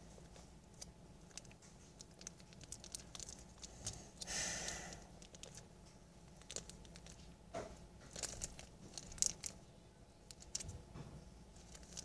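Faint rustling and crinkling with scattered small clicks, from a child fidgeting and handling things, and a brief swishing hiss about four seconds in.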